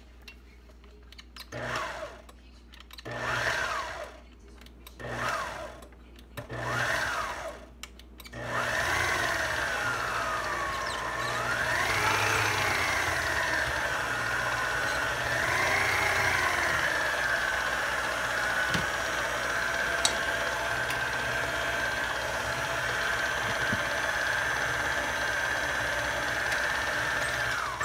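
Electric mixer beating powdered sugar into chocolate frosting: four short bursts in the first eight seconds, then running continuously, its pitch rising and falling a few times before settling into a steady whine.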